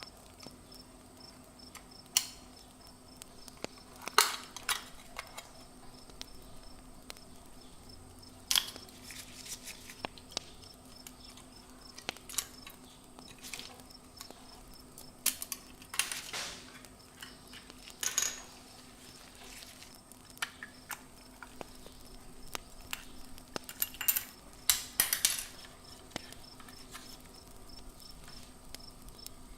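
Irregular sharp clicks, clinks and short knocks of hand tools and metal parts being handled, scattered every second or two, over a faint steady hum.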